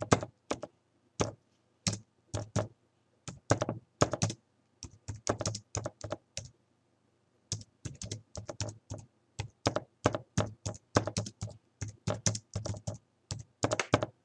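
Typing on a computer keyboard: a run of key presses, a pause of about a second midway, then quicker typing.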